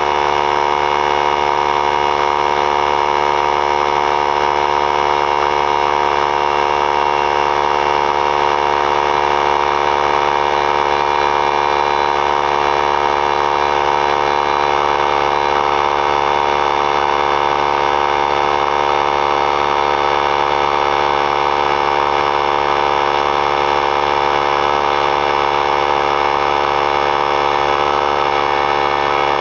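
3-gallon oilless pancake air compressor running, its motor and piston pump filling the tank toward 100 psi. Loud, steady and unchanging, with an even pitched drone.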